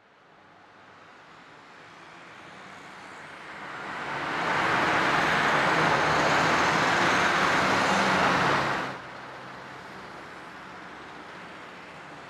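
City street traffic noise fading in and swelling to a steady level, then cutting off abruptly about nine seconds in, leaving a quieter steady background hum.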